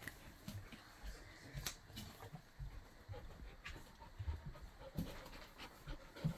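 Faint, scattered sounds of a litter of 16-day-old puppies stirring and breathing on soft bedding, with a few short clicks.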